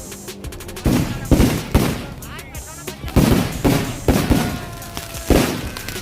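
Fireworks going off: about six loud bangs in three quick clusters, each bang followed by a short echoing decay.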